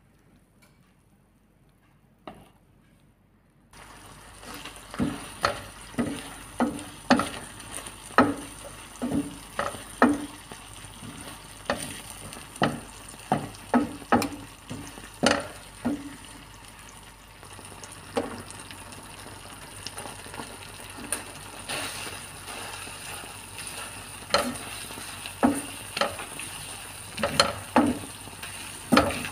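Cream sauce sizzling in a hot frying pan while a wooden spoon stirs it, knocking against the pan about once or twice a second. The first few seconds are nearly quiet; then the sizzle starts abruptly, and the knocks thin out in the second half.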